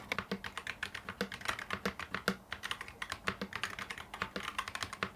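Typing on a mechanical keyboard built from the NuPhy TES68 switch tester kit with clear ABS keycaps: a fast, steady run of key clicks and clacks.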